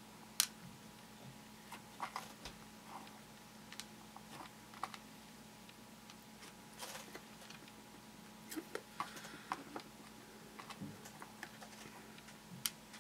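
Small plastic beads and a bead pen clicking and tapping irregularly on a plastic tray and template as beads are picked up and placed one by one, with a faint steady hum underneath.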